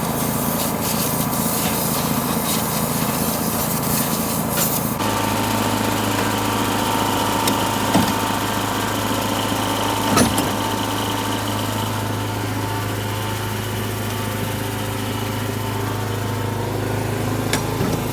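Small gas-engine blower running at full throttle, blowing trash and chaff out of a corn header. The sound shifts abruptly about five seconds in, then holds steady, with a couple of light knocks.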